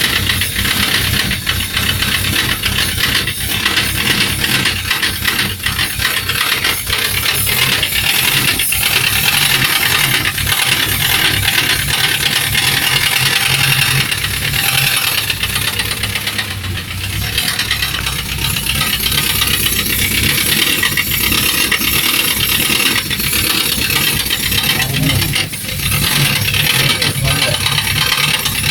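Engine running steadily on its first start after being put back together, with a fast, continuous knock running through its sound.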